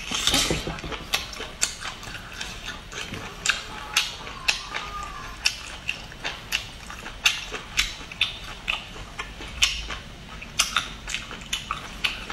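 Close-up mouth sounds of a person biting and chewing a cooked octopus tentacle: an irregular run of wet clicks and smacks, two or three a second.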